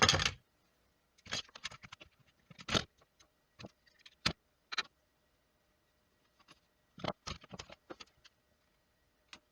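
Knife blade cutting and scraping through the fabric-braided sheath of a USB cable: irregular clusters of short clicks and scrapes with quiet gaps between.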